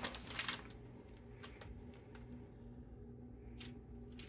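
Quiet kitchen with a low steady hum; soft rustles in the first half-second and a few faint pats later as a hand presses seasoned flour onto raw chicken pieces lying on aluminium foil.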